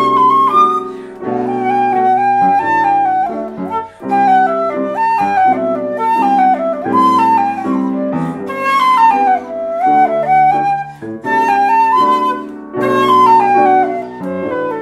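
Concert flute playing a quick, flowing melody with several falling runs, over grand piano accompaniment holding chords underneath. Both pause briefly about four seconds in.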